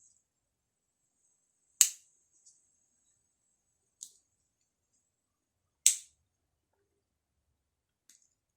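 Victorinox Forester pocket knife's blade snapping into place twice, about four seconds apart, with fainter clicks of handling in between.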